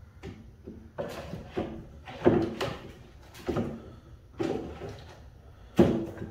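Clamps being set and tightened on a wooden glue-up: about seven sharp clacks and clatters as the clamp jaws slide on their bars and knock against the wood, the loudest about two seconds in and near the end.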